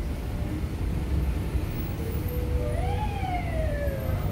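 A siren giving one slow wail: a held tone about two seconds in that climbs, peaks about a second later and slides back down. It sounds over the steady low rumble of idling buses and cars in stopped traffic.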